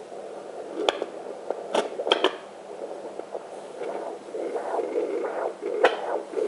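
Fetal Doppler speaker giving the pulsing sound of blood flow in the mother's own artery near the left hip bone, at roughly two beats a second (about 116–118 beats a minute), with a few sharp clicks. This maternal arterial pulse, not the baby's heartbeat, is the sound often mistaken for the baby.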